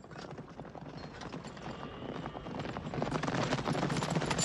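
Many horses galloping, a dense clatter of hoofbeats that grows steadily louder.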